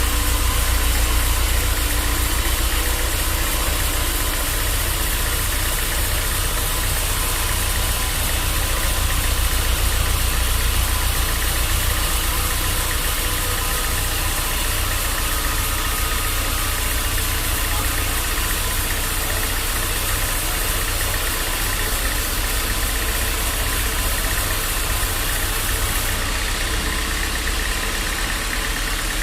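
Band sawmill machinery running steadily: a deep hum under a broad hiss, with the highest part of the hiss dropping away near the end.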